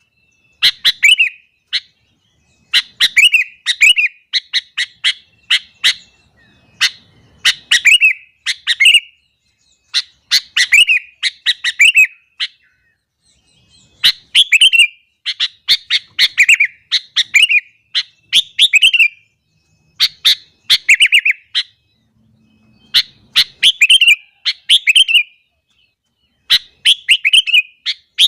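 Sooty-headed bulbul (kutilang) singing loudly in repeated short phrases. Each phrase is a few sharp notes run into quick falling notes, with brief pauses between phrases.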